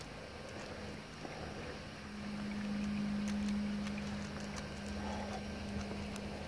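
Steady low engine hum of an aircraft passing over, swelling between about two and four seconds in.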